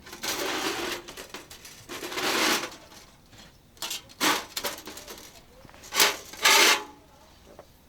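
Irregular rubbing strokes on a thick iron griddle plate: two longer strokes in the first few seconds, then several shorter ones.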